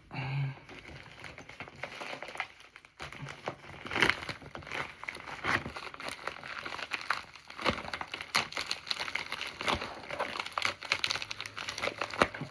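Packaging of a mailed parcel crinkling and rustling in the hands as it is pulled open, with many irregular crackles.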